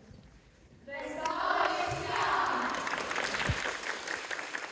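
Audience applause and cheering voices, breaking out suddenly about a second in.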